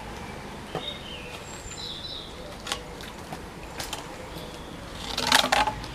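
Short high bird chirps with scattered sharp clicks, then a brief loud rustling clatter about five seconds in.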